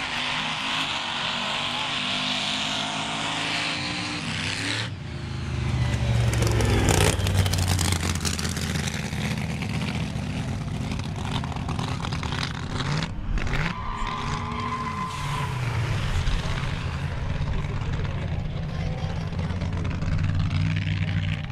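V8 car engines revving, their pitch rising and falling, in a string of short clips that change abruptly about 5 and 13 seconds in. The loudest stretch comes about 6 seconds in.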